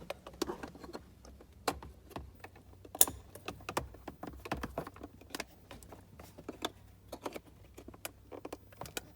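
Irregular sharp clicks and light rattles of plastic parts being handled: the Acura RSX instrument cluster's wiring connectors being plugged back in.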